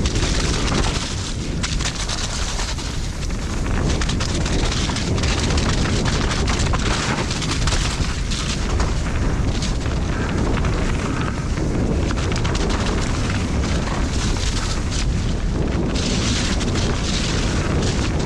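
Mountain bike descending a muddy trail at speed: wind rumbling on the microphone, with tyre noise and frequent small rattles and knocks from the bike.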